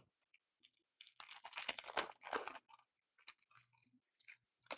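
Foil trading-card pack wrapper crinkling and tearing open, a dense crackle for about two seconds, followed by a few short crinkles as the wrapper and cards are handled.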